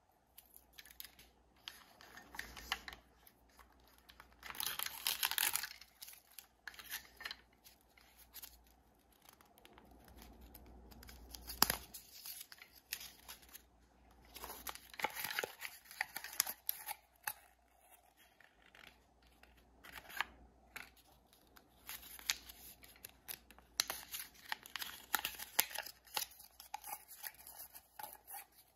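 Paper and plastic toy packaging being torn and unwrapped by hand: irregular ripping and crinkling with occasional sharp clicks, and a longer tear about five seconds in.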